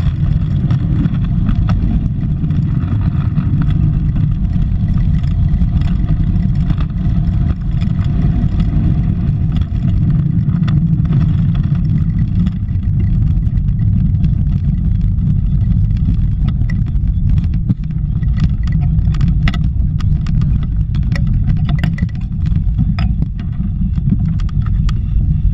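Wind buffeting an onboard camera's microphone and tyre noise rumbling on asphalt as an engineless soapbox racer coasts downhill at speed. Sharp knocks and rattles from the car's body come more often in the later part.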